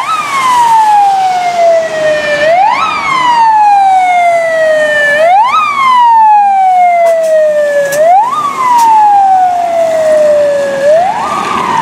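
Fire engine siren on an emergency run: a wail that rises quickly and falls slowly, repeating about every three seconds.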